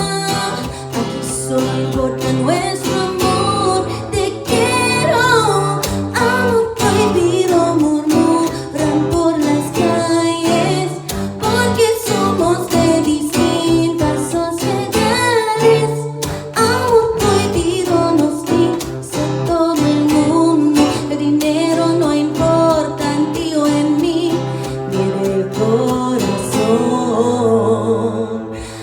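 A woman singing a Spanish-language song over strummed guitar in a live cover, with no other instruments. The music thins and drops briefly near the end.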